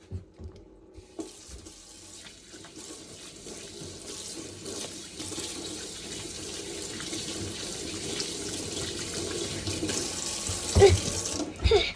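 Water running from a tap into a sink. It comes on about a second in, runs steadily while growing slowly louder, and is shut off shortly before the end.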